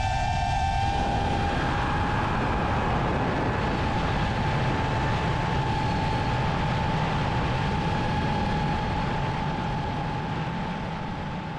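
5-inch FPV quadcopter's motors and propellers whining at a steady pitch under a rush of wind noise, fading away near the end.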